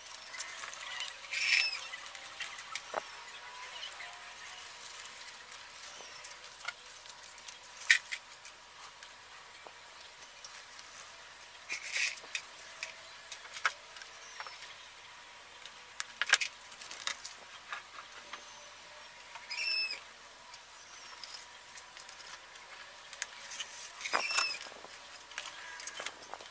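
Scattered clicks and a few short, high chirping squeaks over a faint steady hum.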